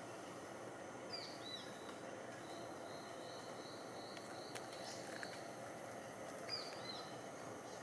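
Faint rainforest ambience: short falling bird chirps about a second in and again near the end, a run of quick repeated high notes in the middle, and a thin steady high insect buzz over a soft background hiss.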